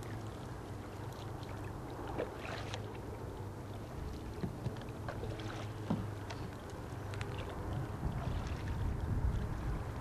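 Faint paddle splashes and small knocks from a kayak being paddled across calm water, over a low rumble of wind on the microphone that swells near the end.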